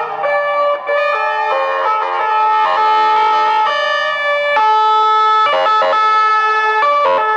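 Sirens of several ambulances sounding together, their overlapping tones stepping between pitches as the column drives past.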